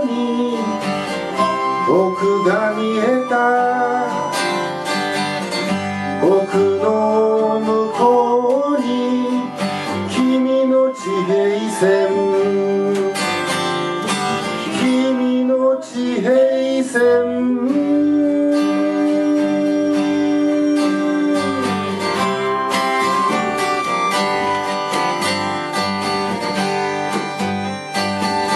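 Live acoustic band playing an instrumental passage: strummed acoustic guitar and upright double bass under a keyboard melodica carrying the melody, with long held notes and some notes gliding in pitch.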